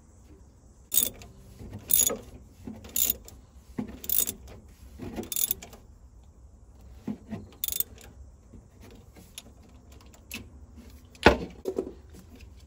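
Socket ratchet clicking in short bursts about once a second as it works the locked nuts to unscrew a stud from a VW 1600 twin-port engine, with a sharper metal knock near the end.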